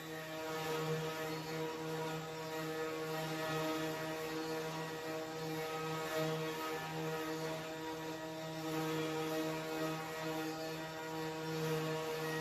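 CNC router running with a steady machine hum and a constant hiss, swelling slightly now and then.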